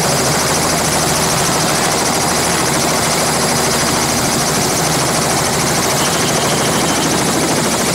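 Light two-bladed helicopter running on the ground with its rotors turning, a steady, unbroken engine and rotor sound.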